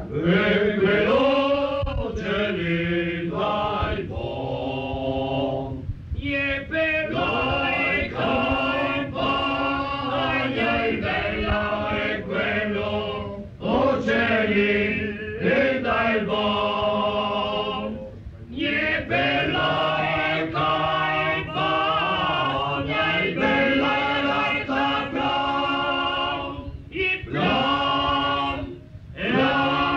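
A group of voices singing a traditional folk song unaccompanied, in long sung phrases with short pauses for breath between them.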